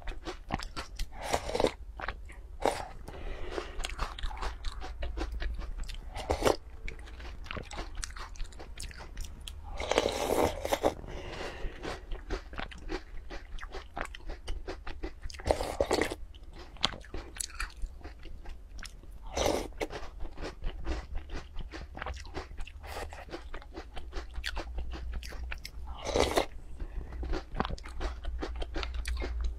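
Close-miked eating: crunching and chewing of small bear-shaped biscuits soaked in milk, with a few louder slurps of milk from a spoon.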